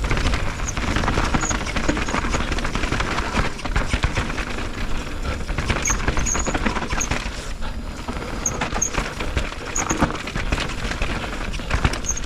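Orbea Rise e-mountain bike running down a rough trail: a continuous clatter and rattle of tyres and bike over the ground, with a string of short, high squeaks from the squealing disc brakes.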